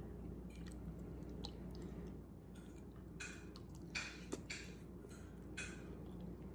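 A person chewing food close to the microphone, with a series of short wet smacking and mouth sounds in the second half and a sharp click about four seconds in, over a faint steady hum.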